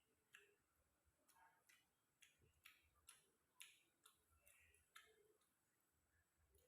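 Faint mouth and chewing sounds of someone eating: short crisp clicks and smacks, about one or two a second.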